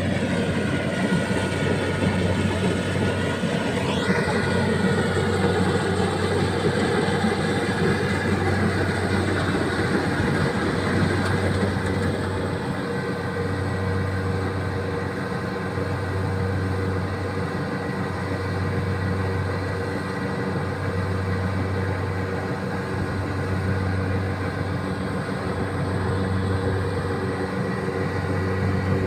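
Rice combine harvester running, its engine and threshing machinery making a steady mechanical drone with a slow throb every couple of seconds. It is a little louder for the first dozen seconds.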